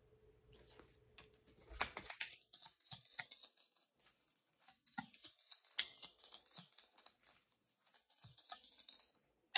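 Tarot cards being shuffled and handled: a rapid run of crisp papery flicks and snaps, ending in one sharp slap.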